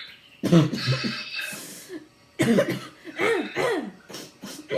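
A child's habit cough (a somatic cough tic): one loud cough about half a second in, then a run of several quick coughs from about two and a half seconds, each with a voice sound that falls in pitch.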